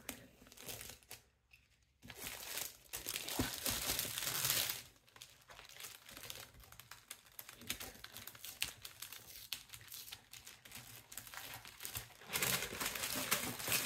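Tissue paper crinkling and rustling as it is unfolded by hand from around the parcel's contents. It comes in bouts, louder a couple of seconds in and again near the end.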